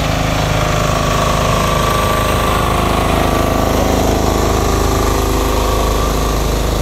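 Engine on a decorated parade float running steadily, loud and close, with an even unbroken drone.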